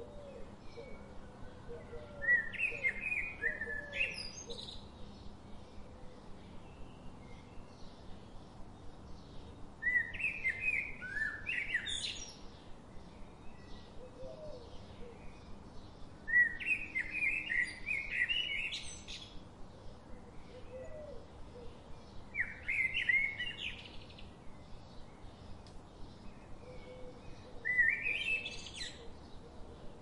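Red-whiskered bulbul song: five short, bright, warbled phrases of quick chirpy notes, each ending in a sharp upward sweep, repeated about every six seconds.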